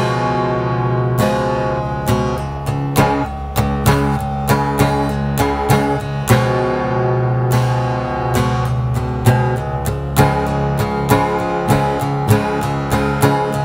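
Instrumental music: chords plucked or strummed on a stringed instrument in a steady rhythm over sustained low bass notes.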